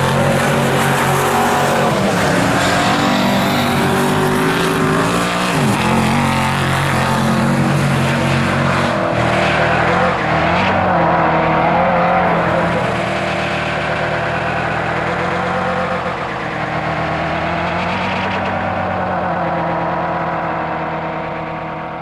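Chevrolet Malibu SS race car's V8 engine at full throttle, its pitch dropping at a couple of gear changes in the first half, then growing duller and more distant as the car pulls away.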